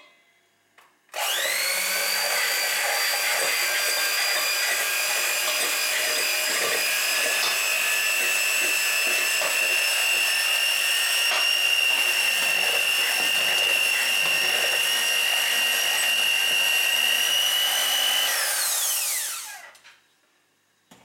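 Electric hand mixer with dough hooks running steadily while mixing flour into a yeast dough, a constant motor whine that starts with a quick spin-up about a second in. Near the end it is switched off and the whine falls in pitch as the motor winds down.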